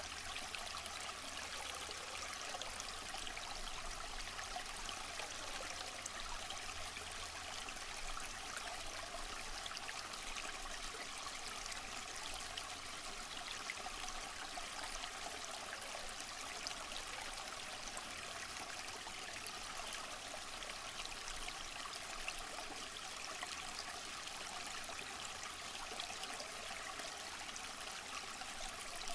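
Waterfall: a steady, unbroken rush and splash of falling water.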